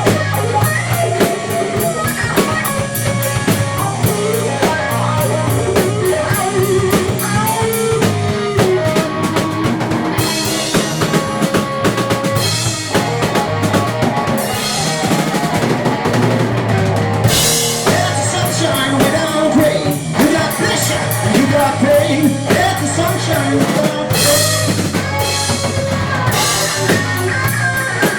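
Rock band playing live without singing: guitar lines over a bass guitar and drum kit, with cymbal crashes several times.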